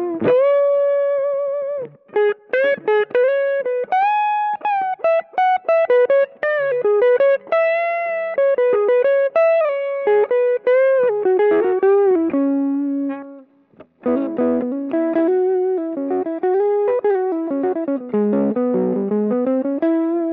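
Electric guitar playing single-note lead phrases with string bends and vibrato through the Ampero II Stomp's Affinity Boost, a model of the Xotic AC Booster pedal, giving a tone that edges into overdrive. The playing stops briefly about thirteen seconds in, then resumes.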